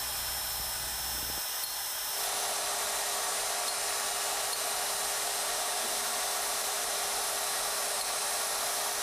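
Grinding motor of a Hougen 10950 cutter sharpening machine running steadily with a high, hissing grind as the wheel works the outside inclination angle on an annular cutter's teeth. A low hum drops out just after a second in, and the grinding grows a little louder about two seconds in.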